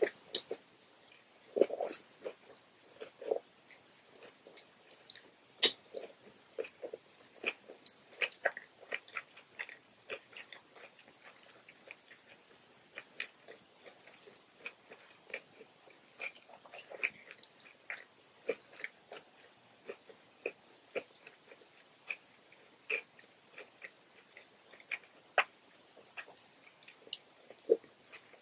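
Close-miked mouth sounds of someone biting and chewing a cucumber roll: irregular short clicks and smacks, a few a second, with a few louder bites.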